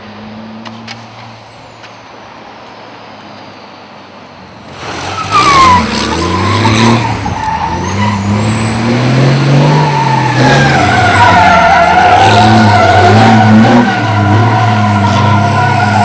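1100 bhp MAN racing semi truck running quietly at first, then about five seconds in the engine revs hard and the tyres break loose into a loud, sustained squeal as the truck drifts, the engine note rising and falling under it.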